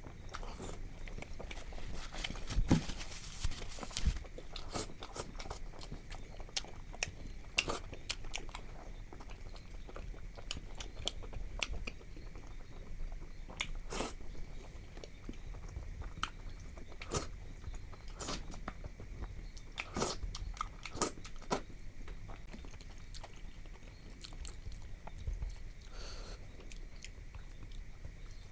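Close-miked chewing and mouth sounds of a person eating rice and curry, with scattered sharp clicks of bites and lip smacks. The loudest of these come about three and four seconds in.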